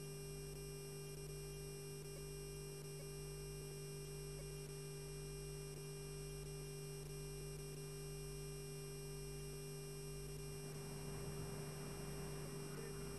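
Steady electrical mains hum over hiss, with a few constant tones and no other sound. A little more background noise creeps in over the last few seconds.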